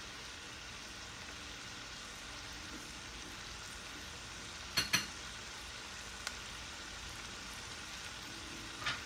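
Chopped mixed vegetables and onions sizzling steadily in a frying pan as they soften. A couple of sharp clinks about halfway through.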